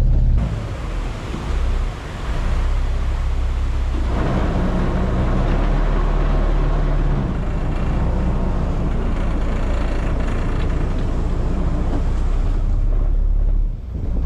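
Fishing boat's engine running with a steady rushing noise over it; it changes abruptly just after the start, fills out about four seconds in, and drops away near the end.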